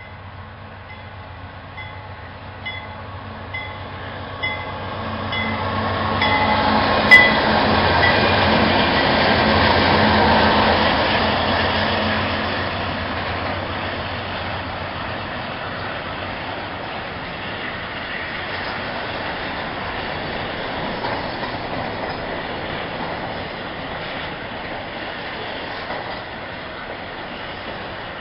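A double-stack intermodal freight train passing close by. Its CSX diesel locomotives grow louder as they approach, with one sharp clank about seven seconds in, and are loudest around ten seconds in. After that comes the steady wheel noise of the stack cars rolling past.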